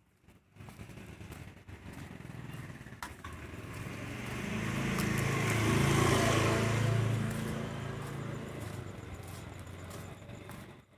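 A motor vehicle's engine passing by, growing louder to a peak about six seconds in and then fading away.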